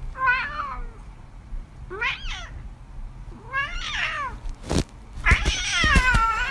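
Cat meowing four times: three short meows about two seconds apart, then a longer, louder meow near the end. There is a sharp knock just before the last meow.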